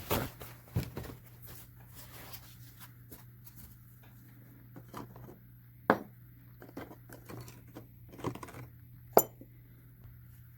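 Small hammered copper earring pieces being lifted out of the patina bath and handled for drying, with scattered light clicks and taps, a sharper click about six seconds in and another about nine seconds in.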